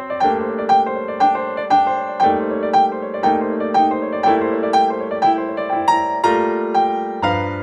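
Background music on piano: a steady melody of struck notes, about two a second, over held chords.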